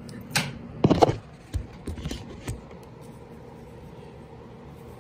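Plastic clicks and knocks from handling the casing of a Probe 601 smoke alarm, as if working it open: a handful in the first couple of seconds, then only a faint steady room hum.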